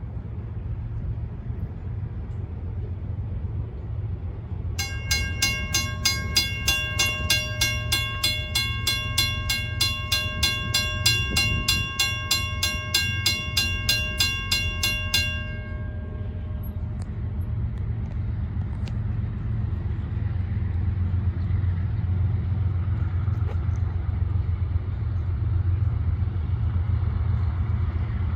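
CSX ES44DC diesel locomotive bringing an intermodal train through a road crossing, its engine and the train rumbling low throughout and swelling in the second half. From about five seconds in, a bell rings rapidly at about three strokes a second for some ten seconds. Over it the train horn sounds in several blasts that end about seventeen seconds in.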